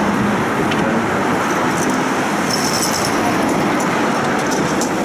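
Tram running along its tracks, heard from on board: a steady rumble of wheels and motor with road traffic passing alongside, and short high clicks and a brief high squeal in the second half.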